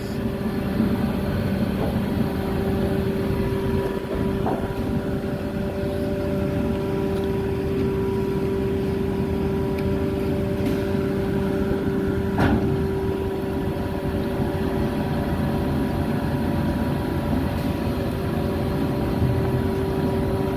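Cargo ship's diesel machinery running steadily: a constant drone with a steady hum on top. A single sharp click about twelve seconds in.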